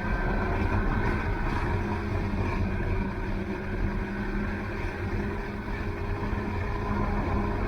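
Snowmobile engine running at a steady pitch and an even level.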